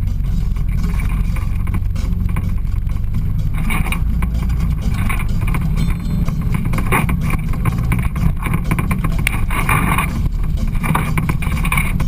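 Side-by-side UTV engine running steadily as it drives a rough trail, with scattered knocks and rattles over the bumps.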